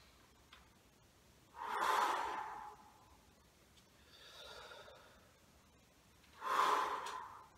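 A man breathing audibly through a slow breathing exercise: two loud, forceful exhalations about four and a half seconds apart, with a softer inhalation between them.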